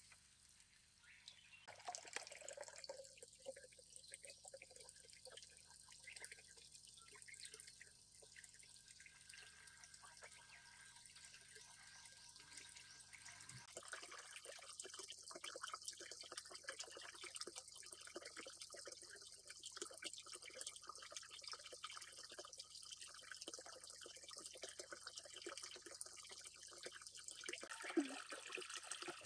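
Faint water trickling and dripping in a garden pond, with many small irregular drips and one sharper drop near the end.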